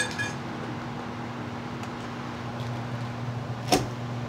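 Steady low hum of a fan or motor running, with a single sharp knock near the end.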